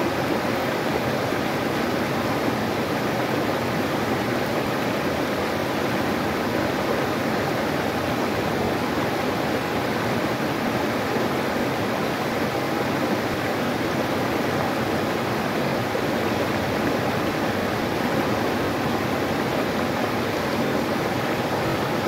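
River water rushing steadily over a low rock shelf in small rapids, an even, unchanging rush of flowing water.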